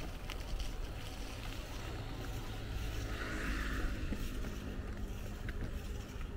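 Riding ambience on a bicycle: a steady low rumble of wind on the microphone and tyres rolling on the road. A brief hiss comes about halfway through, and a faint hum joins from then on.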